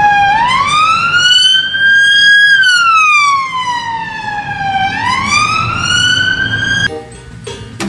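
UK police car siren on a slow wail: the pitch rises for about two seconds, falls for about two and a half, rises again, and cuts off near the end.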